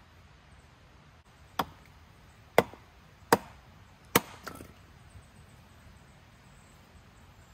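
Wood being chopped: four sharp strikes about a second apart, the last followed by a lighter knock.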